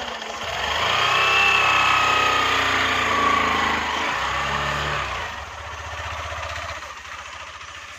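Hero Glamour 125 cc single-cylinder motorcycle engine pulling away and accelerating, rising in pitch and loudness over the first second or two. Its pitch dips and climbs again about four and a half seconds in, then it eases off and fades as the bike rides away.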